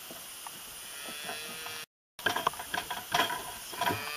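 Hands pressing and shifting the metal wire grate of a wooden hay feeder: a dense run of quick metallic clicks and rattles in the second half, after a brief dropout to silence near the middle. Before the dropout there are only a few faint clicks and one short pitched call.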